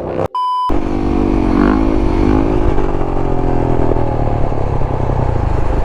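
A short electronic beep about half a second in, then a dirt bike engine running steadily, its pitch wavering a little under light throttle.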